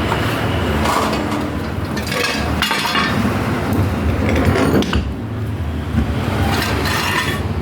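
Metal parts of a demolition jack hammer and tools clinking and scraping in a few short clusters as it is handled after reassembly, over a steady low hum.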